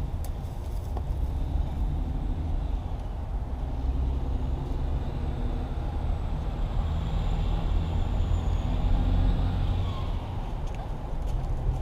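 Road traffic: a steady low rumble of vehicles, with one passing vehicle swelling louder and fading again between about six and ten seconds in.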